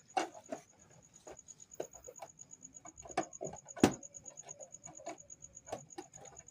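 Insect trilling in a steady, rapidly pulsing high tone, with scattered clicks and knocks. The loudest knock comes about four seconds in.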